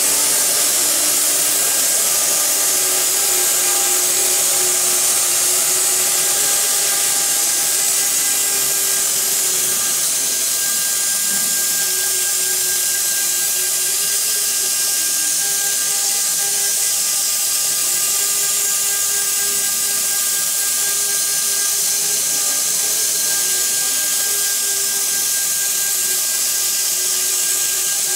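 CNC router's spindle running steadily while its bit carves a relief pattern into a wood panel: a constant high hiss and whine, with a lower hum that wanders slightly in pitch as the head moves.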